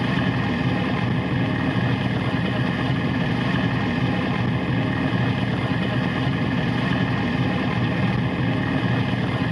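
Bizon Z056 combine harvester running steadily while cutting barley: its six-cylinder diesel engine and machinery give an even drone with steady tones, unchanged throughout.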